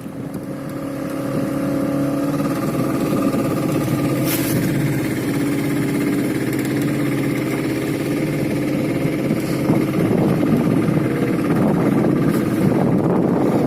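Fishing boat's engine running steadily, swelling over the first two seconds and then holding, with a rougher rushing noise joining in over the last few seconds.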